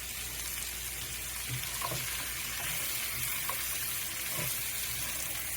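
Green beans frying with onions and bacon in bacon fat in a pan, sizzling steadily, with a few light taps of a stirring utensil through the middle.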